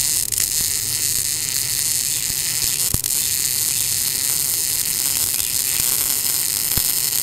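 Continuous MIG wire-feed welding arc from an NBC 288 welder: a steady buzzing hiss as the torch runs a bead on steel, with a couple of sharp pops from spatter.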